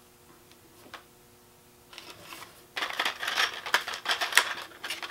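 A few faint clicks as plastic wire caps are twisted onto spliced wires. About three seconds in, a paper packaging card is picked up and handled, rustling and crackling loudly.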